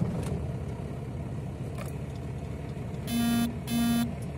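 A 1993 Dodge D250's 12-valve Cummins 5.9 L inline-six diesel, just caught on a cold start and running at idle. About three seconds in come two short electronic beeps, each about half a second long.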